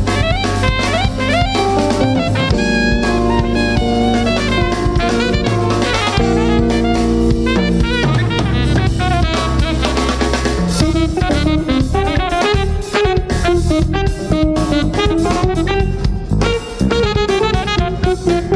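Live jazz-fusion quartet playing: a busy drum kit with alto saxophone lines over electric bass.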